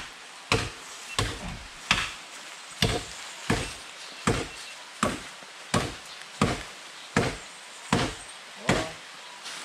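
Cutlass (machete) chopping into bamboo: about a dozen sharp, steady strikes, roughly one every three-quarters of a second.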